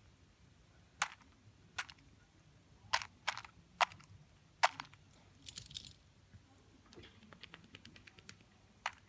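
A hen pecking dry kibble from a stainless steel bowl: irregular sharp clicks of beak striking pellets and metal, with a run of fainter, quicker ticks near the end.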